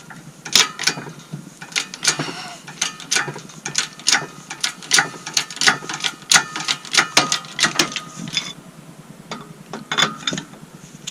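Press working an old rubber control arm bushing out of a Honda EG Civic's front arm: a stream of sharp, irregular metallic clicks and knocks, about two to four a second, with a faint squeak in the middle. The clicks thin out near the end.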